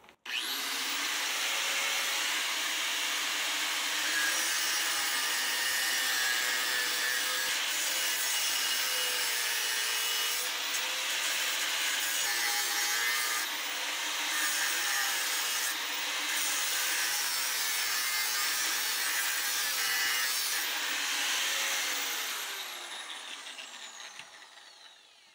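Power grinder starting abruptly and cutting and grinding on the steel brackets of a rear axle housing, running under load with a wavering pitch for about twenty seconds. Near the end it is let off and winds down with a falling whine.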